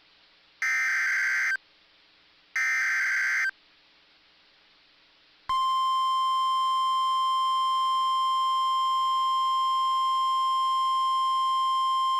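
NOAA Weather Radio Emergency Alert System alert: two SAME digital header bursts, each about a second of harsh electronic data warble, with short gaps of near silence. About five and a half seconds in, the steady 1050 Hz warning alarm tone starts and holds, signalling a severe weather warning.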